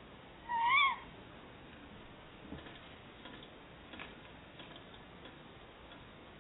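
Tawny owl giving one short, shrill call that rises then falls in pitch, about half a second in. This is followed by a few faint light taps.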